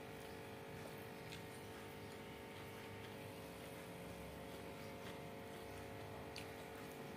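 Steady low hum in a quiet room, with a few faint clicks and rustles from fingers picking rice off a banana leaf wrapped in paper.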